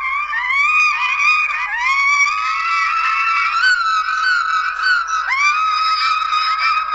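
High-pitched squealing, voice-like sound that keeps sliding up in pitch, several squeals overlapping, with no break.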